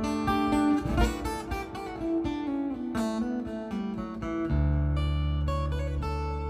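Acoustic guitar fingerpicked in DADGAD tuning: a folk-blues instrumental line of plucked melody notes over ringing bass strings, with a deep bass note struck about two-thirds of the way through and left to ring.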